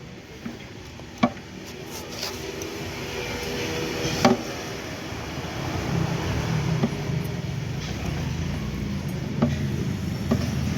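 Sharp metal clinks and knocks from tools and bolts during work on a car's steering rack mounting, the loudest about a second in and just after four seconds, over a steady mechanical hum that grows louder over the first several seconds and then holds.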